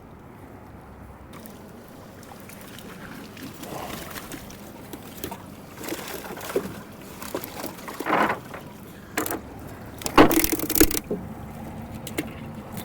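Knocks, clatter and splashes of gear being handled aboard a small fishing boat, loudest in sharp bursts about eight and ten seconds in. A steady low hum comes in near the end.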